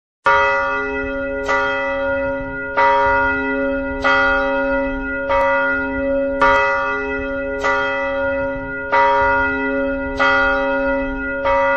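A single church bell tolling at an even pace, about ten strokes a little over a second apart, each stroke ringing on into the next.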